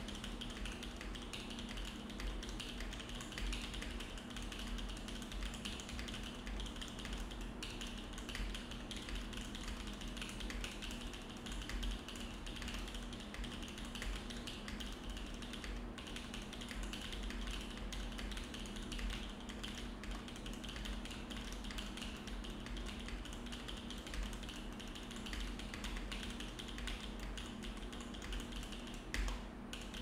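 Continuous typing on a Think6.5 V3 custom mechanical keyboard with an aluminium plate and no foam inside the case: a steady, dense stream of keystroke clacks.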